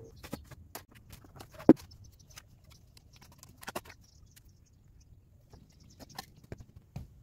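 Dry sand being scraped and pushed into a trench with a small hand trowel: scattered gritty scrapes and light ticks, with one sharp knock nearly two seconds in.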